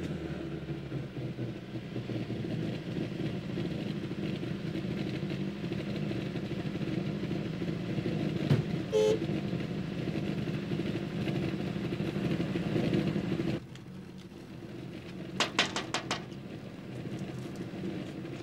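Car engine running at low speed with a steady rumble, then switched off abruptly about three-quarters of the way through. A few sharp clicks follow.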